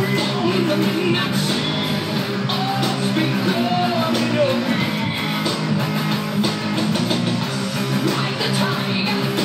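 A rock song with singing, with an electric guitar played along to it.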